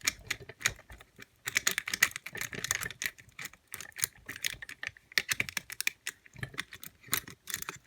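Rapid, irregular small metallic clicks and scrapes of a homemade lifter working the levers of a three-lever lock held under tension, as the lock is picked by overlifting.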